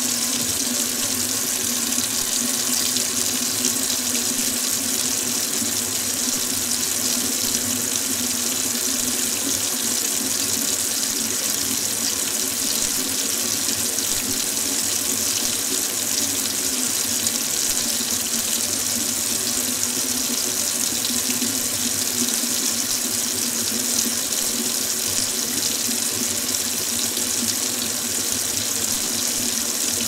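Kitchen sink faucet running steadily, a constant stream of tap water pouring into the sink basin with no change in flow.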